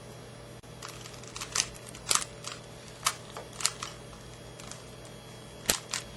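Plastic Rubik's Cube layers being turned by hand: irregular clicks and clacks, some in quick pairs, the sharpest about two seconds in and near the end. The cube is old and worn, stiff enough that its pieces are sometimes hard to move.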